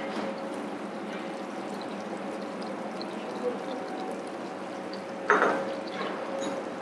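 Chopped shallots frying gently in butter and oil in a small steel pan over a gas burner: a steady sizzle and hiss with a faint steady hum beneath. About five seconds in there is a brief louder rush that quickly fades.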